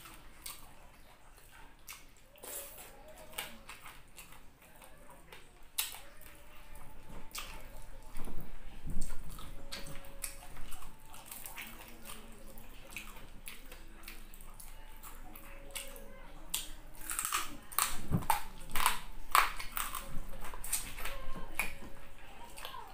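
Close-miked eating of fried tilapia with the fingers: wet chewing and lip smacks with sharp clicks as fingers pick apart the fried fish. The sounds come in irregular clusters, loudest about nine seconds in and again over the last few seconds.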